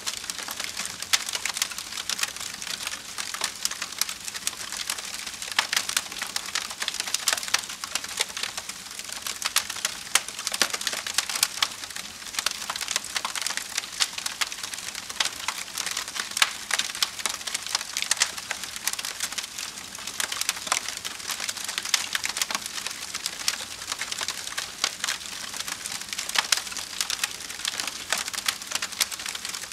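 Wood campfire burning with constant crackling and frequent sharp pops.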